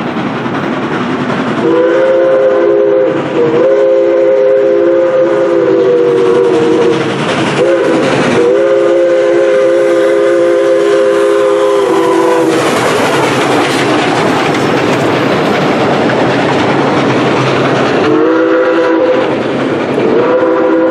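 Steam locomotive CNJ 113's chime whistle sounding several long blasts, the signal for a grade crossing. Then the engine passes with a loud rush of steam and wheel noise, and the passenger cars roll by over the rail joints. Near the end the whistle sounds again.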